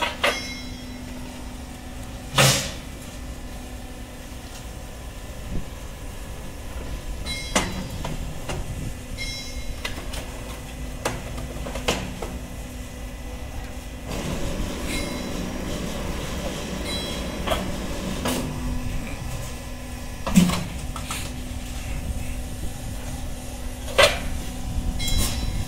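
SM-X concrete roof tile machine running with a steady hum from its electric drive. Sharp clanks of steel tile pallets being handled and fed through come every few seconds.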